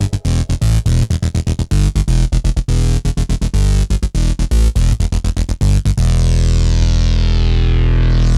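Electronic dance music: fast stuttering, chopped beats, then about six seconds in a held bass-heavy chord with a sweep that falls and turns upward again near the end.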